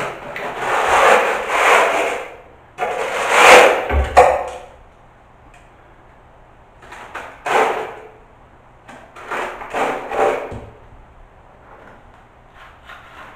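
Plastering trowel scraping sand-and-lime mortar against a ceiling crack in rough strokes. Several loud strokes come in the first four seconds, then a few shorter, fainter ones.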